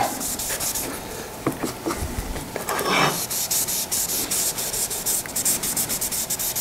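Cloth rag rubbing tung oil finish onto a walnut wood base in quick repeated wiping strokes, about five a second in the second half.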